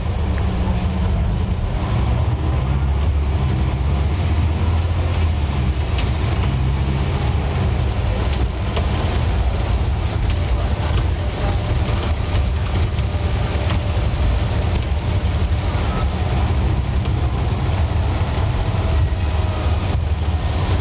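Scania N94UD OmniDekka double-decker bus's diesel engine running steadily with a deep, even drone, heard from inside the upper deck, with a few faint clicks and rattles from the body.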